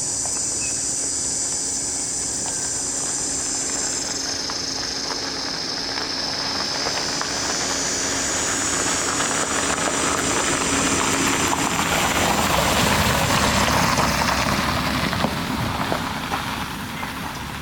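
Insect chorus buzzing at a high pitch over a low steady hum, fading out partway through, while a loud rushing noise swells to a peak about twelve seconds in and then dies away.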